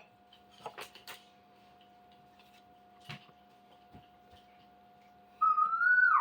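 Light scattered clicks and taps of parts and a tool being handled. Near the end comes a short, loud whistle-like tone that rises slightly and then slides down.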